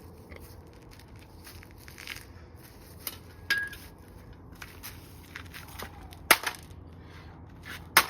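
Hammer striking an old alarm clock's casing: a few sharp, separate blows, the loudest about three and a half seconds in, about six seconds in and at the very end, with smaller cracks and clinks between them.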